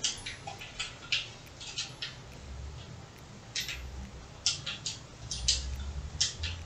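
Coloured pencil sketching on sketchbook paper: a series of short, scratchy strokes, irregular and often in quick runs of two or three.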